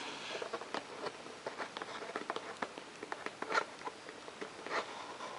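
Hands prying and tearing open a sealed cardboard trading-card box: irregular crackles and small clicks, with louder snaps about three and a half and five seconds in.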